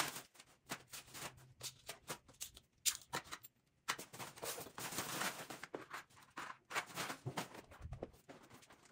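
Plastic shopping bag rustling and crinkling in irregular spurts as it is handled, with scattered light clicks and knocks.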